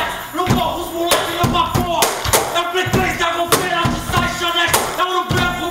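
Music with a steady percussive beat, about two hits a second, and a pitched melodic line over it.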